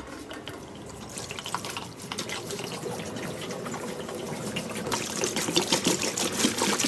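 A stream of water pouring and splashing into the stainless-steel basket of an SK Dry Ice 6000 low-fog machine, getting louder, most of all from about five seconds in.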